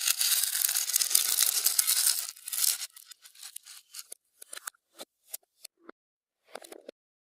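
Clear slime being squished and stretched by hand: a dense sticky crackle for the first three seconds or so, then scattered small pops and clicks.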